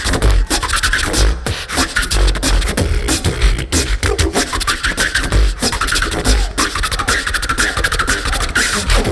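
Live beatboxing by a crew of several voices: vocal kick drums with deep bass, snare and hi-hat sounds in a steady groove, under a wavering synth-like vocal line.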